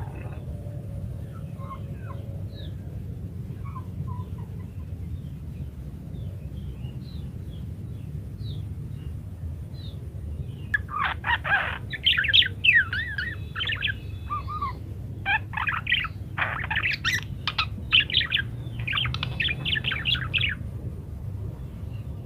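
Budgerigar (parakeet) song: scattered short chirps at first, then, about ten seconds in, a long run of fast warbling chatter that stops near the end.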